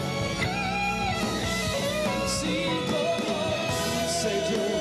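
Orchestra with strings playing an instrumental passage of a slow ballad, with a long held melody note coming in about three seconds in. Two brief bright washes sound near the middle and near the end.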